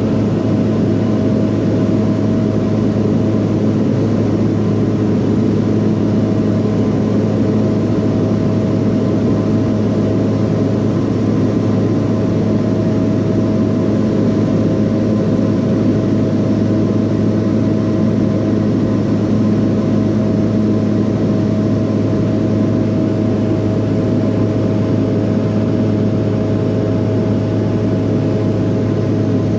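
Loud, steady engine drone with a deep constant hum that does not change pitch or level.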